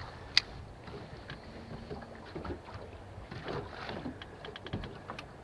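Spinning reel and rod being handled over a snagged line: one sharp click about half a second in and a run of small ticks a few seconds later, over faint wind and water noise.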